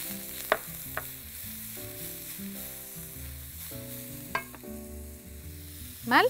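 Chopped onion sizzling in hot fat in a pan as it is stirred with a wooden spoon, with a few sharp clicks.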